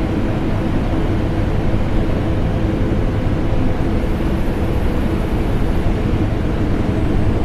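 Steady, deep drone of a vacuum cleaner motor blended with an air conditioner, a constant low rumble with a faint motor hum that does not change.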